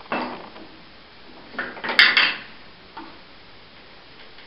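A carving knife cutting into a wooden relief: a short scraping cut at the start, then a louder scrape with a sharp click about two seconds in, and a light tick a second later.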